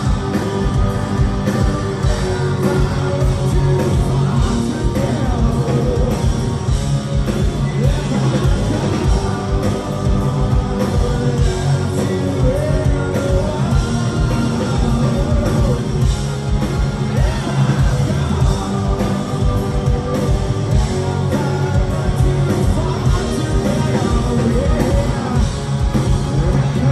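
Live rock band playing electric guitars, bass and drums at full volume, with a man singing lead over them.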